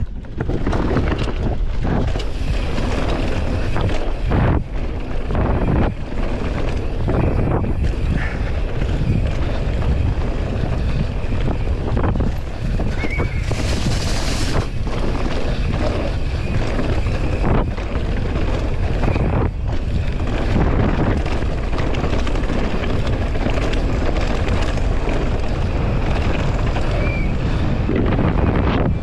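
Wind buffeting the camera microphone and the tyres of a downhill mountain bike rolling fast over a dirt trail, with many short knocks and rattles from the bike over bumps. About halfway through there is a second-long hiss.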